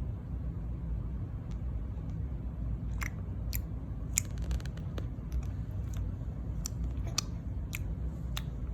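Baby's wet tongue clicks and lip smacks, like a mouth pretending to chew, coming in irregular sharp clicks that start about three seconds in and include a quick rattle of clicks around four seconds.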